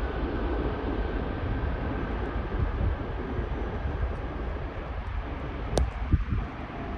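Emirates Airbus A380's four jet engines at full takeoff power, a steady low rumble, with one sharp click near the end.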